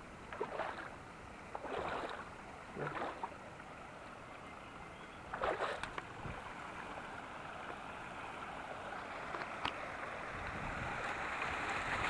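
Shallow stream water running over rocks, getting louder toward the end, with a few separate splashing steps through the water in the first half.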